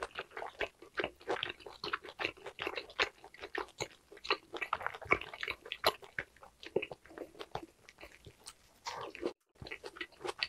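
Close-miked chewing of grilled lamb meat: a steady run of wet smacking and small crackling clicks of the mouth. The sound cuts out completely for a moment near the end.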